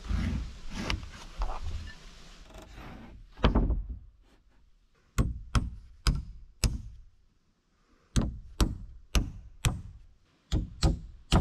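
A hammer driving nails through a short wooden block into a length of framing lumber. The sharp strikes come about two a second: four, a pause of about a second, then a run of about eight. Before the nailing there are duller knocks and scraping, with one heavier thump.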